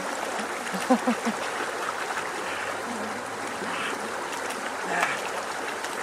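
Steady rushing, water-like noise, with a few short voiced sounds about a second in and again near five seconds.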